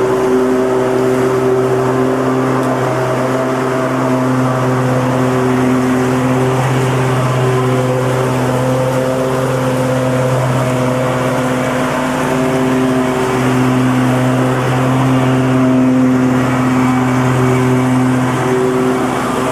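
Lawn mower engine running steadily at working speed, a steady drone with slight wavering in pitch and level.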